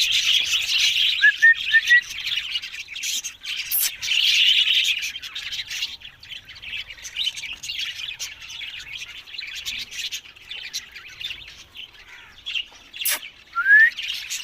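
Green ringneck parakeets chattering in dense, high chirps, with a quick rising whistle near the end.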